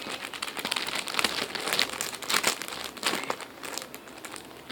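Plastic packaging of a panda squishy crinkling as it is handled, a run of irregular crackles that thins out near the end.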